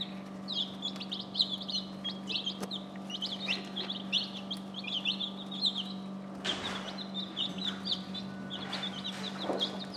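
A brood of baby chicks peeping without pause, many short high cheeps overlapping, over a steady low hum. A brief rustle comes about six and a half seconds in.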